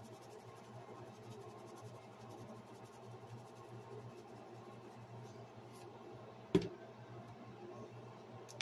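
Lemon pepper shaker being shaken over raw beef neck bones: faint light ticking over a steady low hum, then one sharp knock about two-thirds of the way through as the bottle is set down on the countertop.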